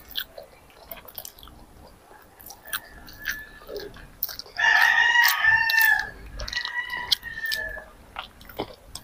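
A rooster crows once about halfway through, one long loud call followed by a shorter, fainter second part. Around it, a child's chewing and mouth clicks as he eats noodles.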